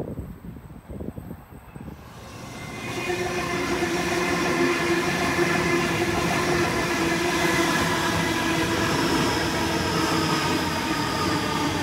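Sydney Trains Waratah double-deck electric train running past close by. It builds up from about two seconds in to a steady whine from the train over the rumble of wheels on the rails. Faint wind before it.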